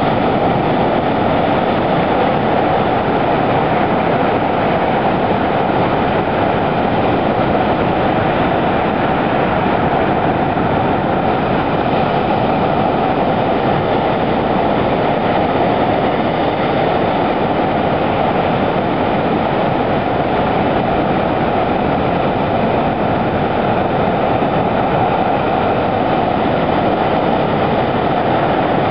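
Heavy surf breaking against rocky sea cliffs: a steady, loud roar of crashing waves and churning whitewater.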